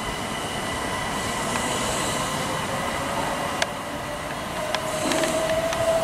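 Class 377 Electrostar electric multiple unit approaching on third-rail track: steady running noise with a thin electric whine, a lower tone rising gently in the second half, and a few sharp clicks of wheels over the track.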